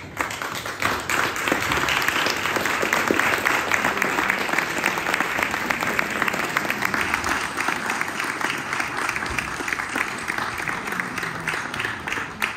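Audience applauding, the clapping starting suddenly and dying away near the end.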